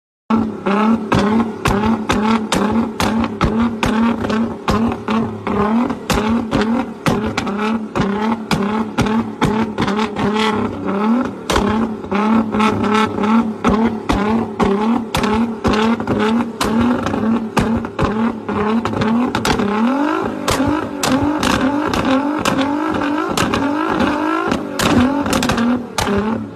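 Nissan GT-R's twin-turbo V6 engine running with repeated short revs, its pitch rising again and again, loudest in the stretch after about 20 seconds, with many sharp cracks throughout.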